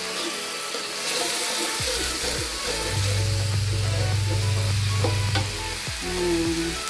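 Ground shallot and garlic paste sizzling as it fries in hot oil in a wok, stirred with a metal spatula.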